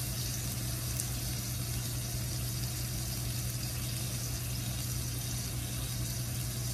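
Pork chops sizzling steadily on a hot griddle, an even hiss with a steady low hum underneath.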